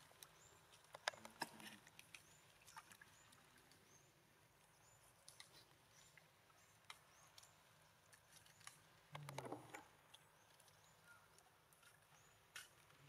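Near silence: faint outdoor ambience with a few soft clicks, about a second in and again near nine seconds in, and scattered short, high chirps.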